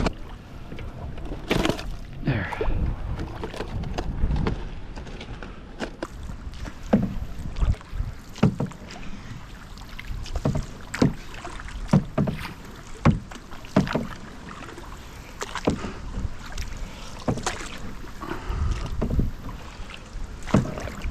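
Small boat moving on a river: water noise with irregular knocks and clunks against the hull, about one every second or two.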